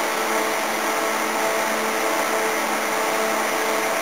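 Several small chiller units running at once: their hermetic refrigeration compressors humming and condenser fans blowing. The hums blend into a steady chord of tones, a "nice harmony".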